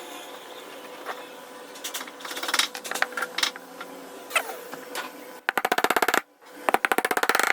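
Workshop tool sounds: scattered taps and knocks over a low steady hum, then two runs of rapid, even clicking at about fifteen clicks a second near the end.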